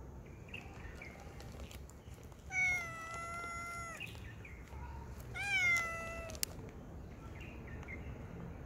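Tabby-and-white cat meowing twice: a long, level meow of about a second and a half, then a shorter one that rises and falls. A single sharp click follows just after the second meow.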